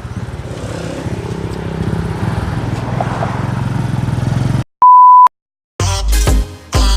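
Motorcycle tricycle engine running with a steady low rumble, cut off abruptly a little before five seconds in. A single loud, steady, high beep lasting about half a second follows, then music starts near the end.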